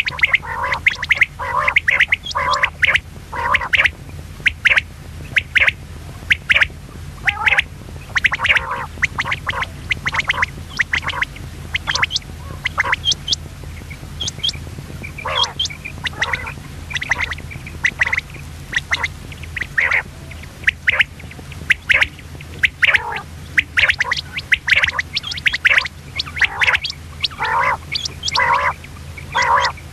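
Common quail, given by the uploader as a female, calling in short notes repeated several times a second, with a brief lull about halfway. A steady low hum runs underneath.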